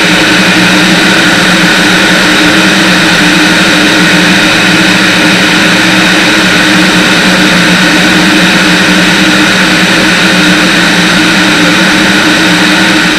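Light propeller aircraft in cruise flight: a loud, steady drone of piston engine and propeller under a constant rush of wind over the wing-mounted camera.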